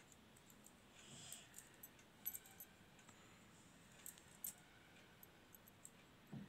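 Faint handling sounds of crochet work: a brief rustle of yarn, then a few light, sharp clicks of pearl beads and a metal crochet hook knocking together, the clearest around two and a half and four and a half seconds in.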